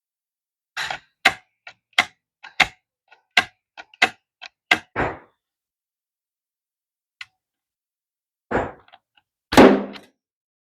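A quick series of sharp knocks and clicks, about a dozen in four seconds, then after a pause two louder thuds near the end, typical of hard wooden pieces being tapped or struck during woodworking.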